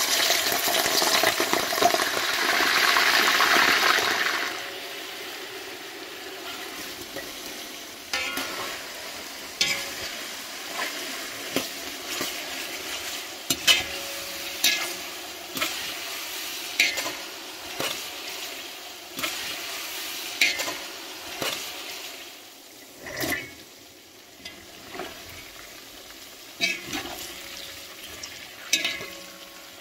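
Chunks of beef dropped into hot oil in a kazan sizzle loudly for about four seconds. Then the frying goes on more quietly while a slotted metal skimmer stirs the meat, onions and carrots, scraping and knocking against the pot about once a second.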